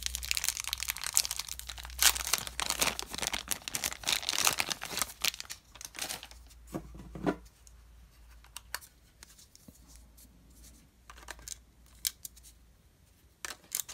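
Thin plastic packaging bag crinkling and tearing with a dense crackle as a camera battery is unwrapped, for about the first six seconds. After that, a few separate small clicks and knocks as the battery door on the camera's underside is opened and the battery handled.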